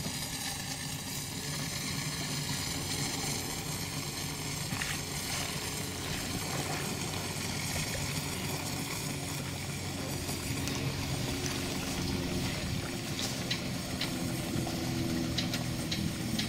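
Small steam launch running across a lake: a steady low hum with water noise, growing a little stronger later on, with a few sharp clicks near the end.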